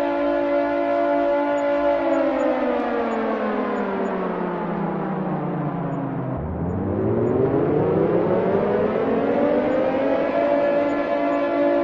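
Air raid siren sounding a steady multi-toned wail, then winding down in pitch for about four seconds and winding back up to full pitch, where it holds again.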